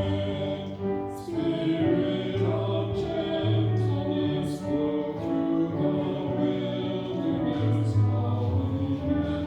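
Church music: voices singing a slow hymn with held notes over instrumental accompaniment.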